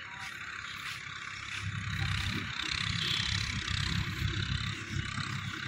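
Distant Swaraj 855 FE diesel tractor working a dry field, a steady mechanical hiss. Wind rumbles unevenly on the microphone, growing stronger about a second and a half in.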